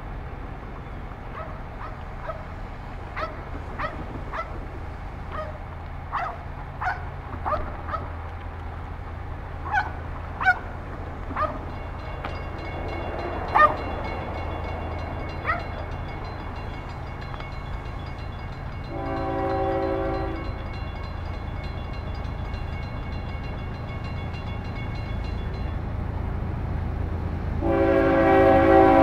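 Air horn of an approaching Florida East Coast Railway locomotive sounding twice: a blast about two-thirds through and a louder one near the end. Under it a low rumble grows as the train nears, with scattered short chirps in the first half.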